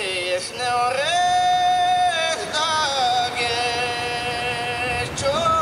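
Slow song with a voice singing long held notes that slide up and down between pitches.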